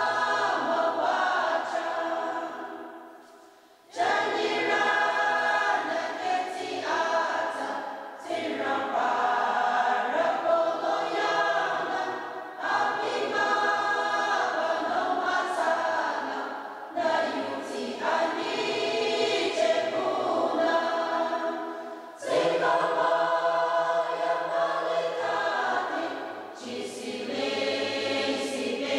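Mixed choir of men's and women's voices singing a hymn together in long phrases, with a brief pause about four seconds in and short breaths between the phrases.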